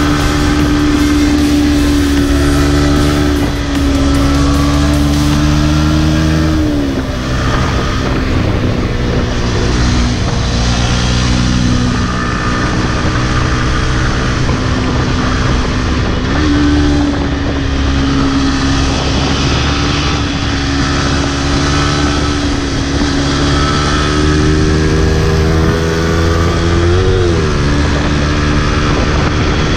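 Yamaha MT-15's 155 cc single-cylinder engine running under way, heard from on the bike with road and wind noise. The engine note holds steady, then drops and picks back up about three times as the throttle is eased and reopened for the curves.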